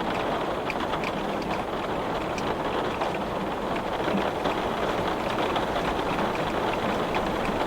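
Heavy rain pattering on glass: a steady dense wash of water noise with many small drop ticks on the pane.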